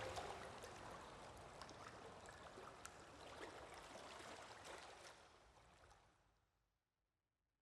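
Faint, water-like hiss with scattered small crackles, fading out to silence about six seconds in.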